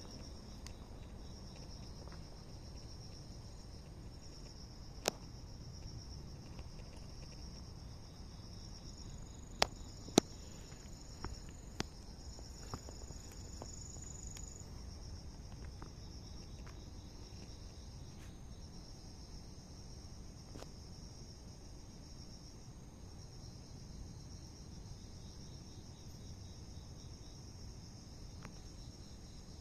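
Insects, cricket-like, chirping steadily in a continuous high trill. A handful of sharp clicks fall between about five and twelve seconds in.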